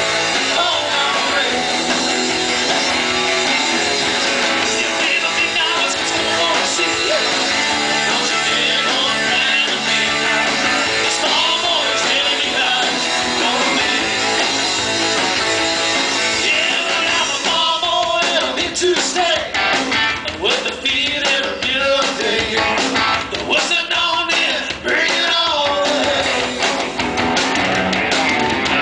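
Live rock band playing with electric guitars, bass guitar and drums. The playing turns choppier, with more breaks and accents, in the last third.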